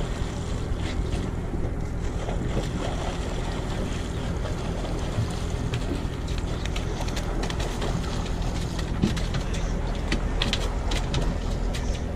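Boat engine idling steadily with a low hum. Near the end come a few sharp clicks and knocks as the netted fish is handled on deck.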